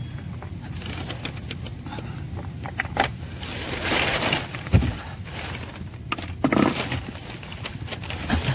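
Hand-tool and part handling while removing screws under a car's dashboard: scattered clicks and scrapes, with a sharp knock a little under five seconds in.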